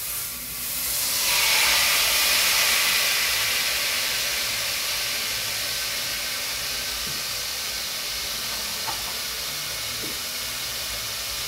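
A spoonful of margarine sizzling as it melts in a hot pan: a loud hiss that swells over the first couple of seconds, then slowly settles to a steady sizzle.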